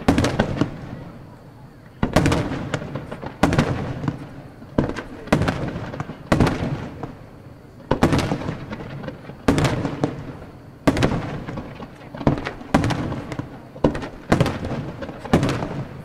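Aerial firework shells bursting one after another in a display, loud sharp booms about once a second, each fading out over a second or so.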